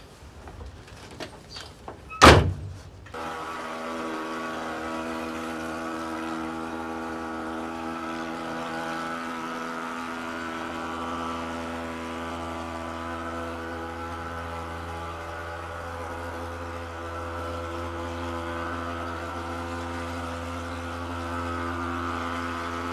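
A car door shuts with a loud thunk about two seconds in. Then a handheld thermal fogging machine runs with a steady engine drone as it fogs a room.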